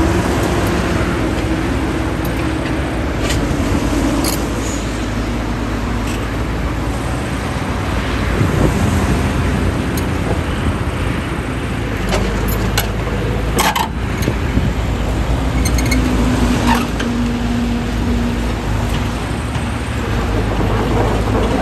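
Caterpillar 311D hydraulic excavator's diesel engine running steadily. A hum comes and goes over it as the machine works, with scattered sharp metallic knocks, the loudest a little past halfway.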